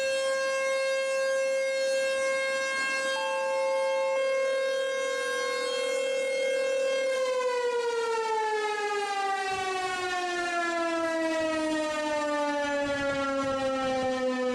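American Signal T-128 electromechanical outdoor warning siren sounding its steady Alert tone. About halfway through, the pitch starts falling steadily as the siren winds down at the end of the signal.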